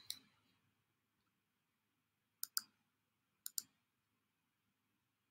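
Two quick double clicks about a second apart, like a computer mouse button being pressed and released, against near silence.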